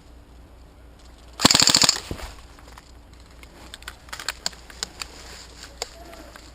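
Airsoft electric gun (AEG) firing one short full-auto burst of rapid shots about a second and a half in, followed by scattered fainter sharp clicks.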